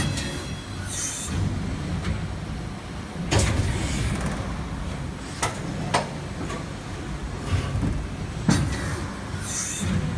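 Ecotrust-HX HXH330 high-speed injection moulding machine running its automatic cutlery cycle: a steady low machine drone with sharp mechanical clunks and short hisses of compressed air, the hiss and the loudest clunk coming round again about eight seconds apart.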